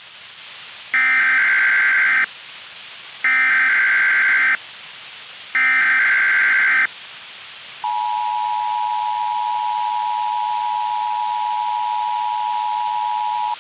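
Emergency Alert System tones over a radio-like hiss. First come three identical bursts of the warbling SAME digital header, each about a second long. About 8 seconds in, the steady two-tone EAS attention signal starts and holds for about six seconds, marking the start of a severe thunderstorm warning.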